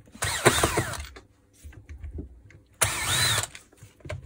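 Cordless screwdriver running in two short bursts about two and a half seconds apart, its motor whine falling in pitch in the first and rising then falling in the second, as it backs out the screws holding a rotary hammer's gearbox housing.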